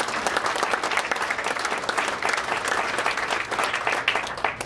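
Audience applauding, many hands clapping together, dying down near the end.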